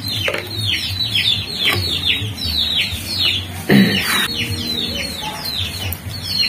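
Chickens: a rapid series of short, high peeps, each falling in pitch, two or three a second, with one louder, lower cluck about four seconds in.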